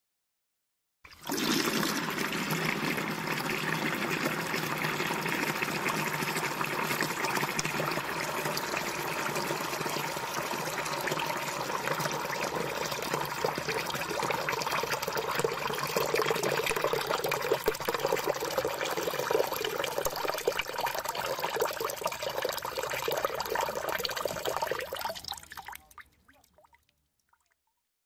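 Water pouring and splashing steadily into a bucket, its tone rising a little as it goes, then tapering off to a few drips near the end.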